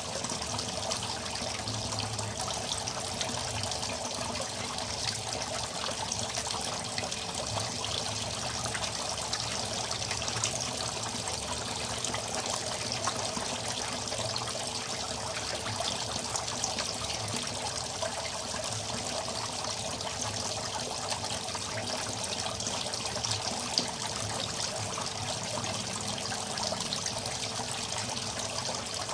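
Steady trickling and splashing of water falling back into a small koi pond from its top-mounted filter, with a constant faint hum underneath.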